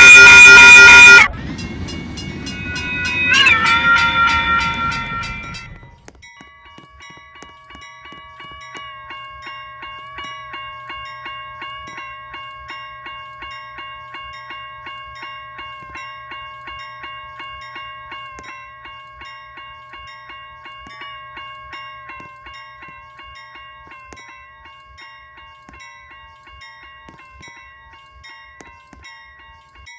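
Locomotive multi-chime horn blowing a loud chord that cuts off about a second in, then a quieter horn note with train rumble that drops in pitch as it passes and fades out. After that a railroad crossing bell rings steadily, about two strikes a second, slowly growing fainter.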